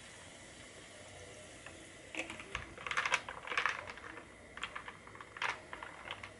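Wooden stirrer clicking and clinking against a glass as a sparkling-water drink is stirred. The clicks come in quick uneven clusters starting about two seconds in.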